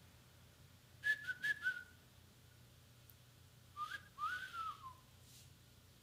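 A person whistling by mouth in a wolf-whistle catcall, in two phrases: three or four quick chirping notes about a second in, then a note that rises and falls away about four seconds in.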